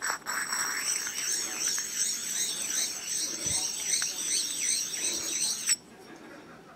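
Two precision-ground bench stones, their faces ground flat and glass-smooth, sliding against each other face to face: a high, wavering squeak and hiss. It cuts off suddenly near the end as the stones are pulled apart.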